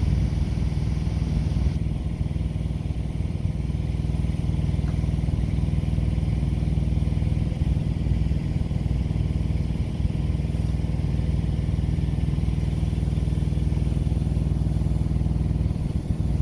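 A steady low engine hum with a rumble, running unchanged throughout.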